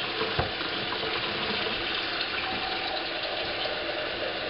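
Kitchen tap running steadily into a stainless steel sink, filling it with water.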